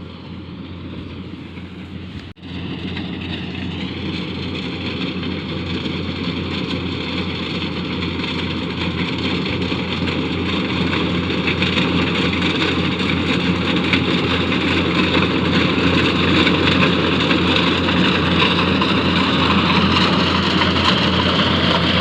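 Engine of rice-harvesting farm machinery running steadily, growing gradually louder, with a brief drop-out about two seconds in.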